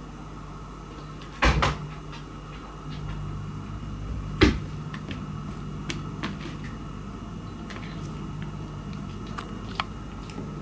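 Two sharp knocks about three seconds apart, the first doubled, among scattered light ticks and taps as a cat bats a cotton swab about on a wooden floor, over a steady low hum.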